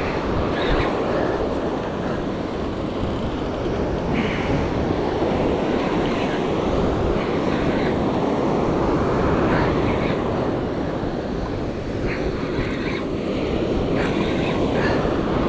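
Wind buffeting the microphone in a steady rush, with surf breaking on the beach underneath.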